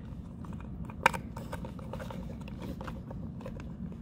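Handling noises from an M50 protective mask as its rubber nose cup and plastic air deflector are pulled back: small clicks and rubbing, with one sharp click about a second in, over a steady low hum.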